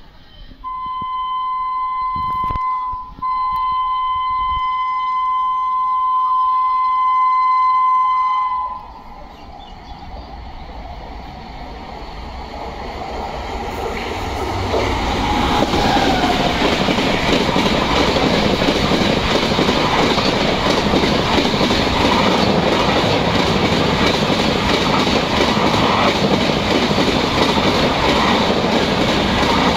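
WAP-7 electric locomotive's horn sounding one long blast of about eight seconds, broken briefly about three seconds in. The noise of the Duronto Express then grows as it nears, and the train runs through the station at speed without stopping, its coaches passing loudly for the rest of the time.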